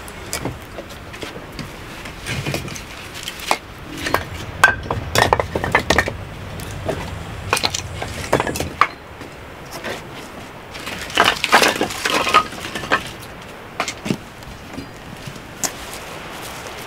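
Split firewood logs knocking and clattering against each other as they are picked off a stack and piled in the arms: quick runs of hard, hollow wooden knocks, some with a brief ring, in two busy spells with scattered single knocks between.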